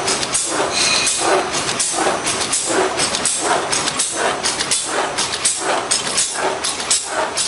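Plastic bag cutting machine running, its cutter stroking in a steady rhythm of about two hissing clacks a second.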